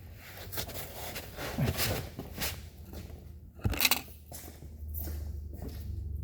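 Handling noises: scattered light clicks and rustles, with one sharper knock a little past halfway, as a gear lube bottle and tools are picked up. A steady low hum comes in near the end.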